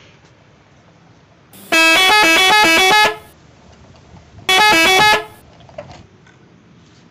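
A melodic multi-tone bus horn sounds twice, playing a quick tune of notes that step up and down. The first blast lasts about a second and a half, and the second, near the middle, is shorter. It is a dubbed-in horn sound effect.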